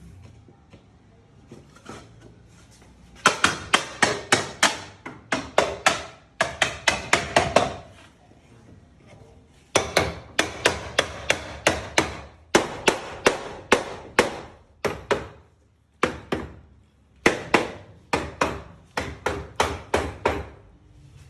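Rapid hammer blows on wood, in three runs of several strikes a second with short pauses between them, as the parts of a wooden altar are knocked together during assembly.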